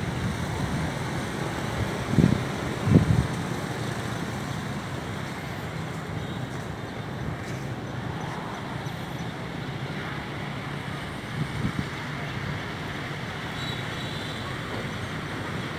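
Steady outdoor rumble with wind buffeting the microphone in brief gusts about two and three seconds in and again near twelve seconds.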